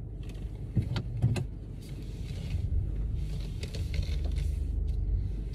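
Steady low rumble like a car cabin, with two or three sharp knocks about a second in.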